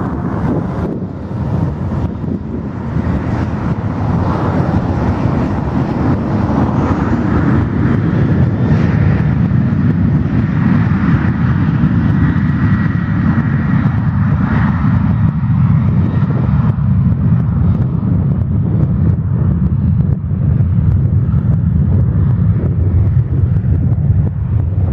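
Boeing 737-800's CFM56-7B jet engines running at departure power: a loud, steady rumble with a broad hiss and a faint whine in the middle. The hiss thins out about two-thirds of the way through, leaving the low rumble.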